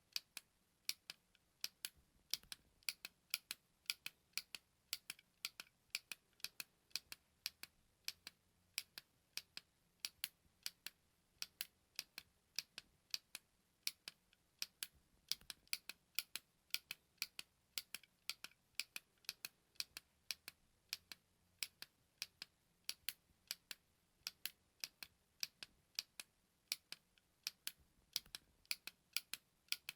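A button clicking over and over, short sharp clicks at several a second, many of them in close pairs like a press and release.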